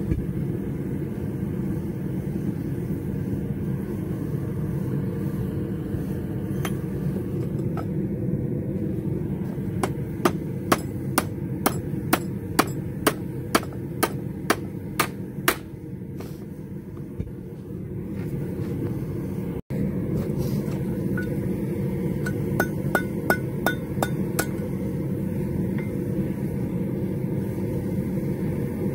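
Hammer striking a red-hot rivet blank clamped in a bench vise, heading the rivet: a run of about a dozen sharp metallic blows at roughly two a second, then after a pause a quicker run of about seven. A steady low rumble runs underneath.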